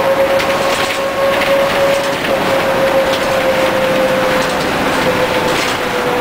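Leyland Lynx single-decker bus under way, heard from the driver's cab: the drivetrain runs with a steady whine that sinks slightly in pitch, over road noise and light rattles from the cab and bodywork.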